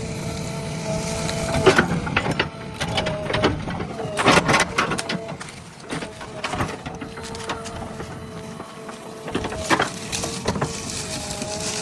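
JCB 3DX backhoe loader working: the engine runs with a steady two-note whine that breaks off now and then, while the digging makes irregular knocks and cracks, in clusters about two and four seconds in and again near the end.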